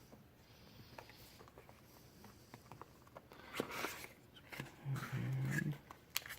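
Light clicks and a short rustle of cardboard and paper as items are handled in an Apple TV box. A brief low hum, like a murmured voice, comes near the end.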